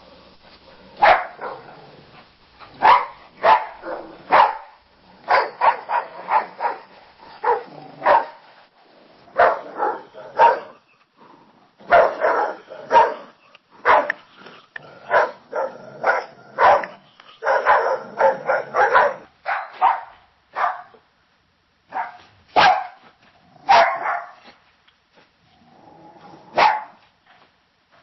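Dogs barking: sharp barks, singly and in quick runs, coming in irregular bursts with short pauses between them.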